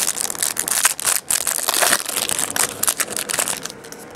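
Clear plastic wrapper on a pack of trading cards crinkling and crackling as hands tear it open. The crinkling stops about three and a half seconds in.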